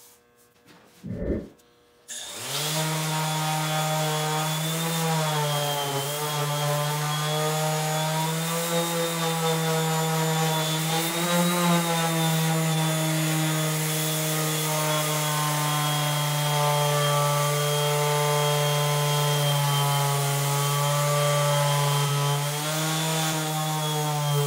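A brief knock about a second in, then a 5-inch random orbital sander switches on about two seconds in and runs steadily, sanding a black walnut board flush. Its motor hum wavers slightly in pitch as it is pressed and moved, over a thin high whine.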